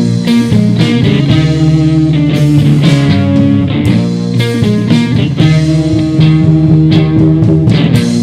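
Rock band playing live: electric guitars, bass guitar and a drum kit with regular cymbal hits.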